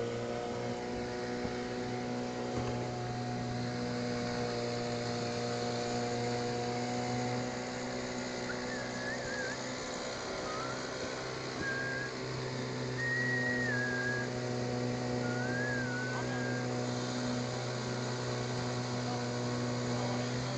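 Small boat's outboard motor running steadily at a constant pitch. About halfway through, a short run of whistled notes rises and falls over the engine.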